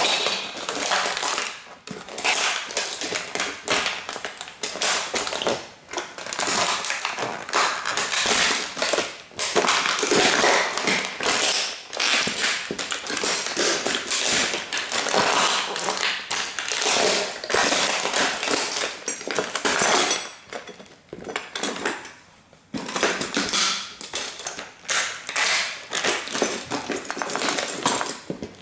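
Dr. Martens Jadon platform-soled boots stomping and grinding on a Bugatti model toy car: a dense run of crunching, cracking parts and clattering fragments, with a short lull about two-thirds of the way in.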